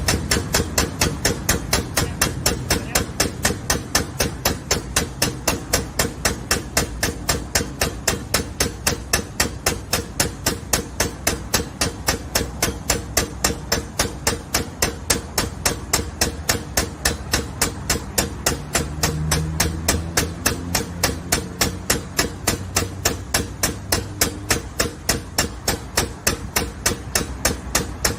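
Steady, rapid hammering, about three even strikes a second, over a low steady hum.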